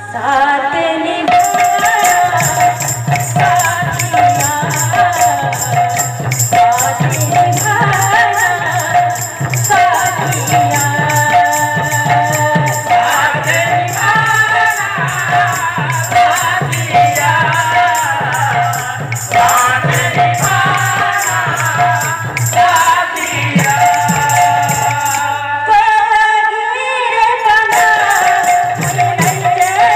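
Devotional kirtan music: a woman singing through a microphone over double-headed barrel drums and hand cymbals keeping a fast, steady beat. The cymbals drop out for about a second near the end.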